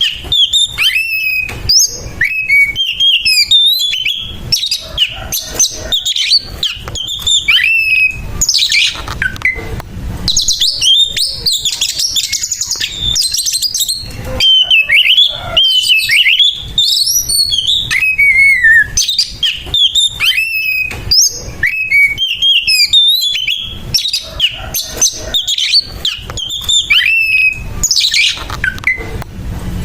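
Oriental magpie-robin (kacer) singing its harsh fighting song without a break: a fast, loud stream of varied whistles, slurred glides, quick trills and rasping notes.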